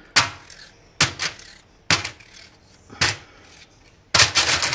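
Kitchen knife cutting potatoes on a chopping board: sharp knocks about once a second, then a quick run of several near the end.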